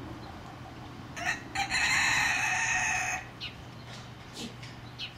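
A rooster crowing once, starting about a second in: two short notes, then a long held note of about a second and a half. A few short, high bird chirps sound around it.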